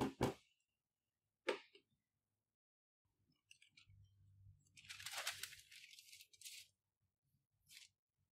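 A few sharp knocks at the start, then a sheet of baking paper rustling and crinkling for about three seconds in the middle as it is handled and laid flat, with one more short rustle near the end.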